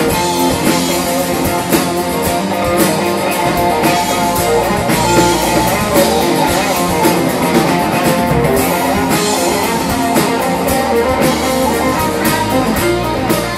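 Live band playing a song: strummed acoustic guitar and electric guitar over bass and a drum kit keeping a steady beat.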